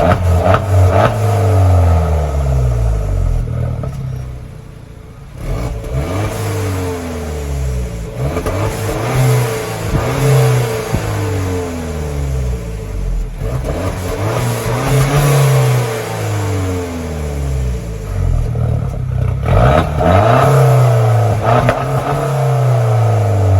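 Peugeot RCZ engine revved again and again through an exhaust fitted with a Guerrilla Bypass cut-out valve, the revs climbing and dropping in repeated sweeps, with a steady whine underneath. There is a quieter lull about four to five seconds in.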